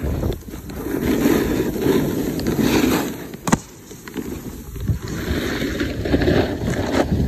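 Snow scraping and hissing under sliding edges as a rider carves down a snowboard halfpipe, with wind rushing on the microphone. A single sharp knock comes about three and a half seconds in.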